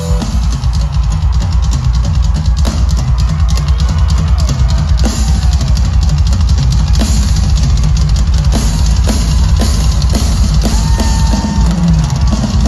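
Live rock drum kit solo, loud through a large outdoor PA: rapid, dense strikes on the kick drum, snare and cymbals.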